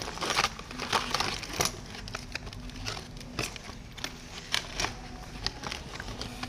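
Small parts being handled by hand: irregular clicks and light knocks with some rustling, over a faint steady hum.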